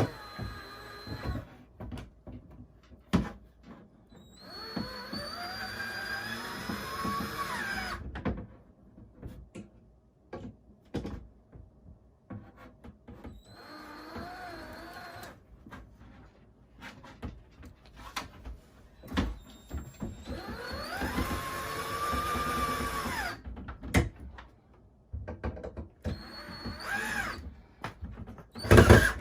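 Power drill driving screws into the door, run in several bursts of a few seconds each, its whine rising and falling in pitch as the screws go in. Clicks and knocks come between the runs, with a sharp knock near the end.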